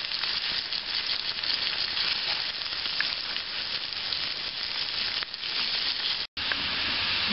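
Hot oil sizzling steadily in a pan as pieces of ash gourd are added to fried curry leaves and mustard seeds. The sound cuts out completely for an instant about six seconds in.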